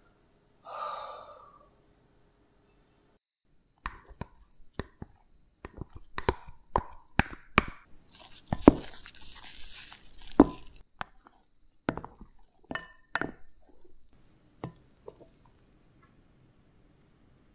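Silicone spatula folding egg yolks into whipped egg whites in a glass dish: irregular taps and clicks of the spatula against the glass, with a brief soft hiss about halfway through.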